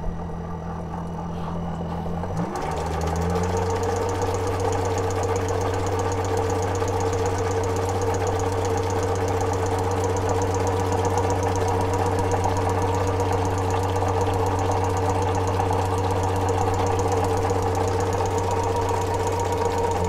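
Home-built 12-volt Adams-type pulse motor driving a small diaphragm-style pressure water pump through a reduction gear: a steady mechanical hum with fast ticking and pump chatter. Its pitch rises about two seconds in, then holds steady.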